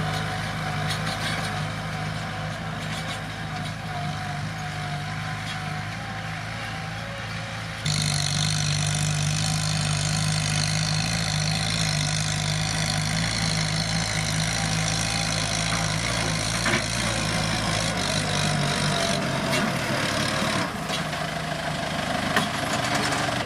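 Kubota M7040 tractor's diesel engine running steadily at a constant speed. It gets suddenly louder about a third of the way through and eases back slightly near the end.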